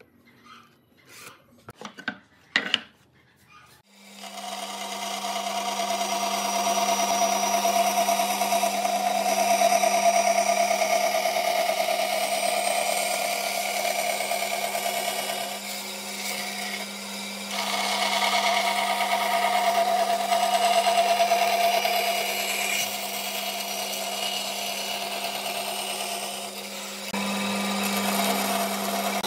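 A few light taps, then a bandsaw starts about four seconds in and runs steadily, its motor hum under the noise of the blade cutting through a wooden board. The cutting eases briefly twice as the board is repositioned, then carries on.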